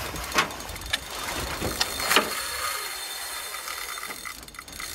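Fishing reel ratcheting and clicking as a hooked king salmon is played on a bent rod, with a few sharp knocks in the first couple of seconds.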